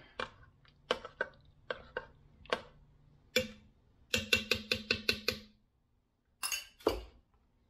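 Metal spoon stirring a thick stew in a stainless steel pressure-cooker pot, clinking against the pot's sides now and then, then a quick run of about eight knocks with a faint ring after them, as of the spoon tapped on the rim. A short scrape or rustle near the end.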